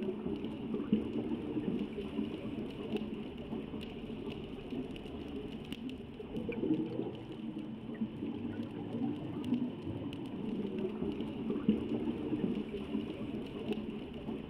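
Underwater ambience: a continuous, uneven low rumble with scattered faint clicks.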